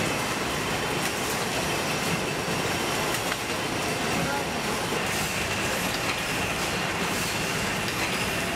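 Tea-packaging line machinery running: a steady, dense mechanical clatter from the conveyor and packing machines, with a thin steady whine joining about halfway through.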